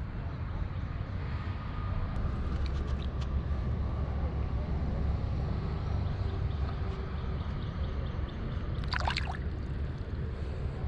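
River water gurgling around a kayak over a steady low rumble, with a brief high warbling sound about nine seconds in.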